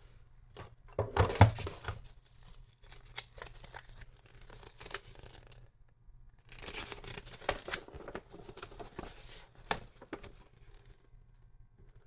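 Cardboard box and packaging being handled: irregular scraping and crinkling in bursts, loudest about a second in, with a sharp click near the end.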